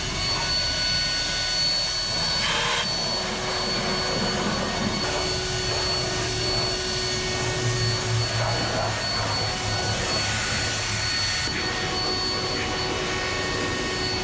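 Steady rush of a powered air blower cleaning dust and crop residue off a combine harvester after the soybean harvest, with a constant whine over the noise.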